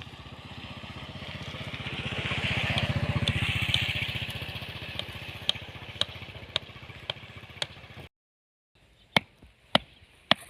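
A motor vehicle engine runs, growing louder to a peak about three seconds in and then fading as it passes. Sharp knocks repeat about twice a second over it. After a brief cut, louder strikes continue at the same pace.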